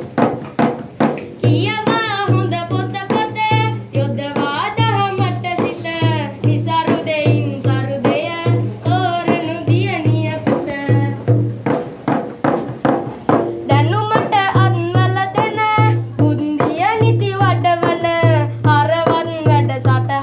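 Music: a singer's ornamented, gliding melody over a held drone and a regular low hand-drum beat, about two strokes a second.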